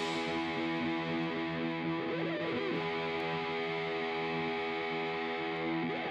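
Background music: a sustained distorted electric guitar chord with effects.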